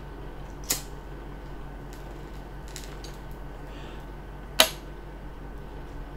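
Quiet room tone with a steady low hum, broken by two short sharp clicks or knocks: a faint one about a second in and a louder one a little past the middle.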